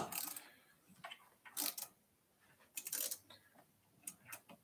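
Ratchet wrench clicking in short, irregular bursts while the stem bolts on an e-bike are loosened so the fork can be turned around, with a sharp click at the start.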